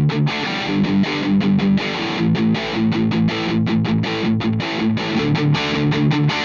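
Electric guitar strumming rhythm chords through an amplifier, recorded on a Royer R10 ribbon microphone, with a Shure SM57 blended in for the later part. The chords come in quick, even hits.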